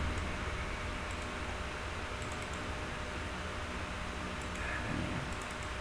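Scattered faint computer mouse clicks, single and in quick small groups, over a steady hiss and low hum.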